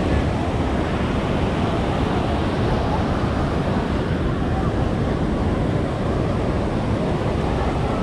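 Ocean surf washing on the beach, a steady rushing noise, with wind buffeting the microphone.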